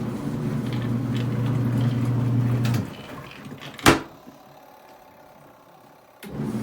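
Twin-tub portable washing machine's motor running with a steady low hum. It cuts out abruptly nearly three seconds in, a single sharp click follows about a second later, and the hum starts again abruptly just after six seconds.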